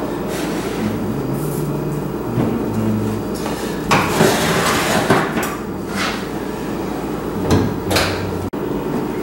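Metal oven rack with a foil pan of chili on it being slid into the oven, with scraping and rattling knocks, the loudest about four seconds in; a couple of heavier knocks near the end as the oven door is shut. A steady low hum runs underneath.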